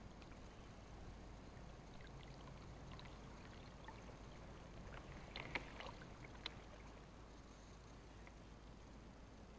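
Faint water sounds, small splashes and lapping, with a cluster of light clicks or ticks about five to six and a half seconds in.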